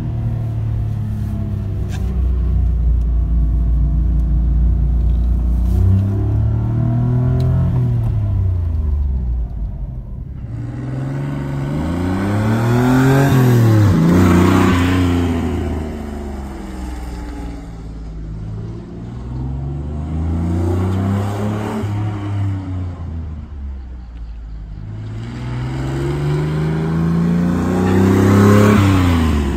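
1994 Honda Acty Van Street's small three-cylinder engine revving up and easing off about four times as the van drives around and past close by. The pitch rises and falls with each pull and is loudest in the middle and near the end.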